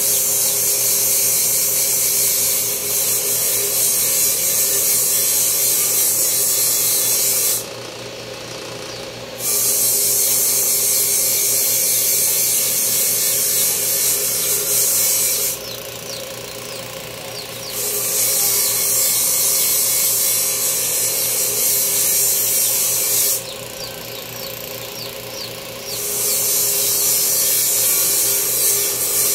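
A small power tool grinding: its motor hums steadily while a loud, high hissing grind comes and goes in four long stretches, broken three times by pauses of about two seconds.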